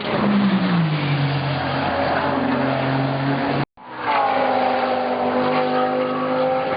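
GT race car engines running at high revs, the pitch dropping as the car slows, then holding steady. A hard cut about three and a half seconds in starts another clip of a race car engine, again falling in pitch and then holding.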